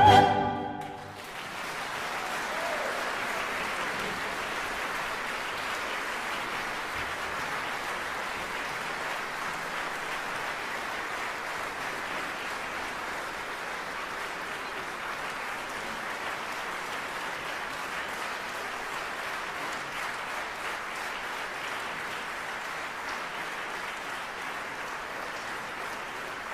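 The soprano's held final note and the orchestra stop within the first second, then a large audience applauds steadily, fading slightly toward the end.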